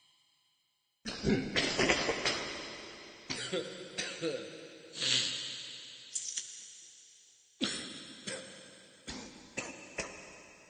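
Repeated coughing in fits: a quick run of several coughs about a second in, single coughs spaced through the middle, and another run near the end, each trailing away slowly.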